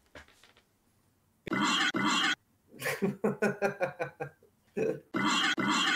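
A man laughing, starting about a second and a half in: breathy bursts of noise and a run of short quick 'ha' pulses, heard through a video-call connection.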